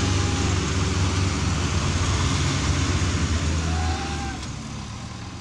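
Belarus 510 tractors' diesel engines running hard under a heavy tow load, a steady low engine drone that drops in level about four seconds in.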